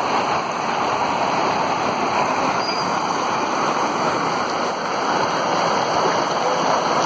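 Steady rushing of fast-flowing muddy floodwater, an even roar of water with no pauses.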